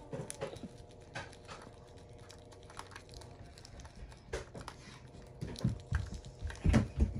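Light scattered clicks and taps of fingers picking at a small plastic slime container and its crinkly contents, with a few louder low thumps near the end.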